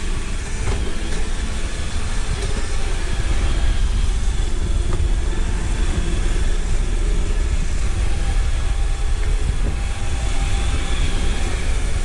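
iRobot Roomba robot vacuum running on a tile floor: a steady mechanical hum of its vacuum motor and brushes.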